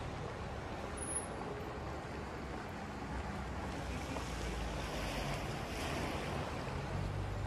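Seaside ambience: a steady wash of surf with a low wind rumble on the microphone. A hiss swells between about four and seven seconds in.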